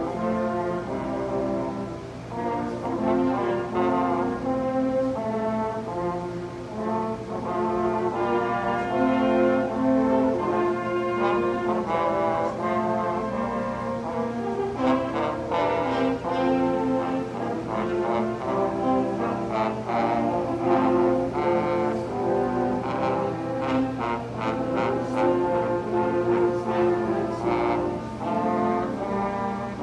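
Ensemble of eight French horns playing an anthem in harmony, sustained chords moving from note to note.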